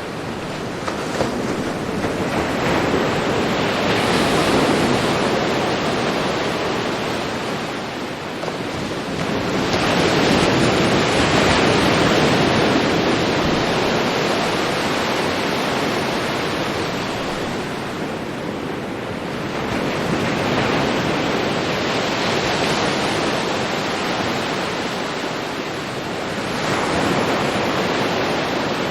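Ocean surf on a beach: waves breaking and washing in, the rush swelling and fading four times, roughly every seven to ten seconds.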